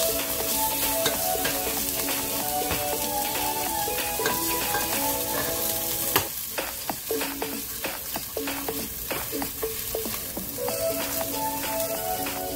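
Shredded chicken sizzling in oil in a non-stick pot as it is stirred and tossed with a plastic slotted spatula, with scraping clicks and a sharp knock about six seconds in. Light background music plays over it and drops out in the middle.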